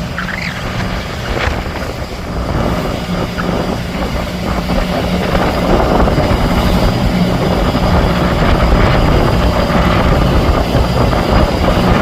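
Fishing boat's engine running with a steady low drone that grows gradually louder.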